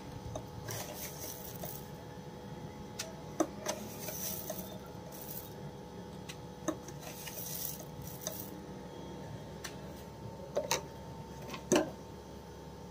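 Salt spooned from a teaspoon onto green chillies in a bowl: several soft hissing sprinkles, with scattered clicks and taps of the spoon, the sharpest near the end.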